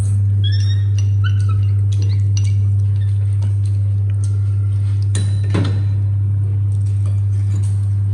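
Dishes and kitchen utensils clinking several times in the first two seconds, with a louder knock about five seconds in, over a steady low hum.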